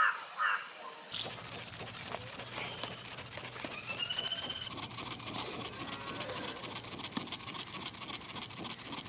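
A woven hand fan flapped fast over a charcoal fire, giving a steady pattering crackle. A bird gives one short whistle about four seconds in.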